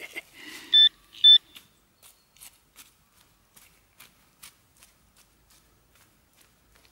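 Two short electronic beeps from a metal detector's pinpointer about a second in, then faint scratching and ticking as the pinpointer's tip probes through loose soil in the dug hole.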